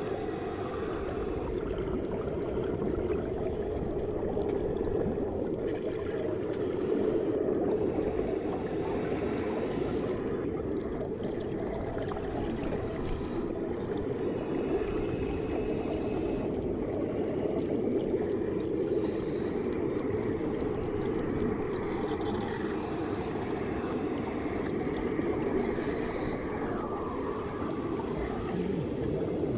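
Steady muffled rumble of swimming-pool water heard through an underwater microphone, with faint bubbling and gurgling from air released under water.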